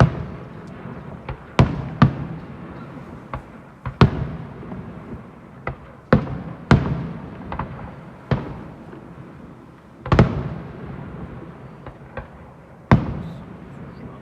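A fireworks display: about ten shell bursts go off at irregular intervals of one to three seconds, each a sharp bang trailing into a rolling echo, with fainter cracks in between.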